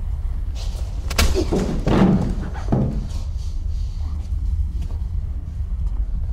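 A door slamming shut about a second in, followed by a heavier thump with some clatter, over a steady low hum.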